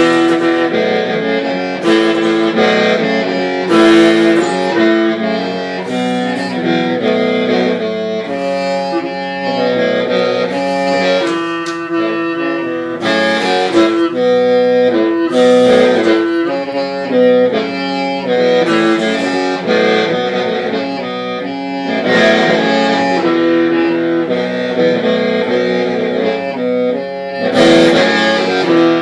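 Hmong qeej (lusheng), a bamboo free-reed mouth organ, playing a continuous melody of held notes that sound together in shifting chords.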